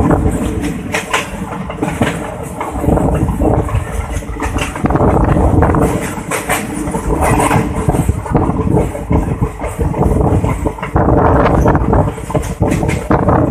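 Passenger train coach running along the track, heard from its open window: a continuous rumble with irregular clattering knocks from the wheels and the rattling coach body.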